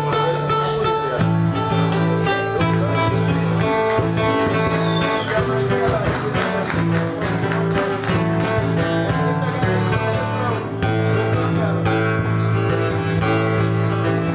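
Instrumental introduction of a sertanejo raiz song, played live: a harmonica holds a melody of long, sustained notes over two acoustic guitars plucking and strumming a steady accompaniment.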